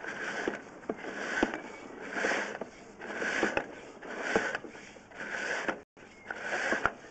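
Drain inspection camera's push rod being fed by hand into a 100 mm earthenware drain: a scraping swell about once a second, with sharp clicks between strokes.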